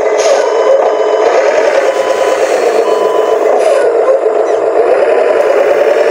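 Small electric motor and gearbox of a radio-controlled dump truck running steadily under drive, a continuous whirring buzz.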